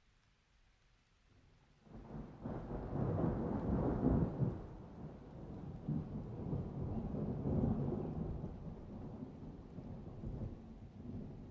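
A roll of thunder that rises from near quiet about two seconds in, is loudest a couple of seconds later, then slowly rumbles away.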